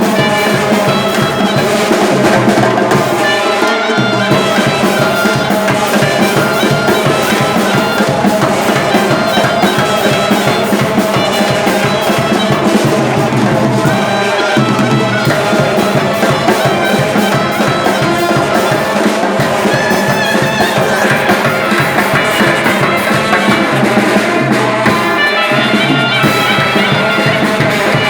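Loud festive music: a shrill wind-instrument melody over fast, steady drumming.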